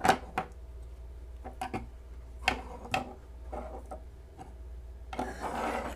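Flipper folding knives being flicked open and shut, a handful of sharp separate clicks as the blades snap into place, with a short rustle of handling near the end.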